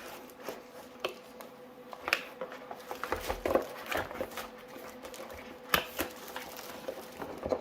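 Scattered light clicks, taps and knocks of a mechanical keyboard and its packaging being handled, with a faint steady hum underneath.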